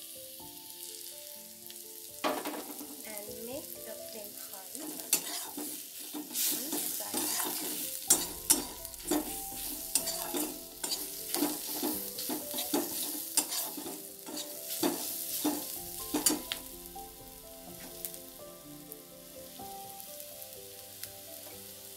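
Onion, garlic and ground-spice masala sizzling as it fries in oil in a metal kadai, while a metal spatula scrapes and clicks against the pan in stirring. The scraping clicks come thickest through the middle.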